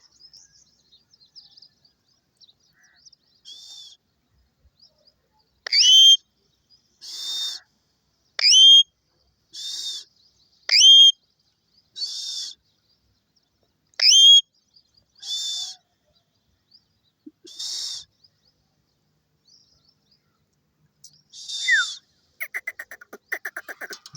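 A parrot calling: four loud, sharply rising whistles alternate with softer hissing calls, spaced every second or two, and a quick run of clicks comes near the end.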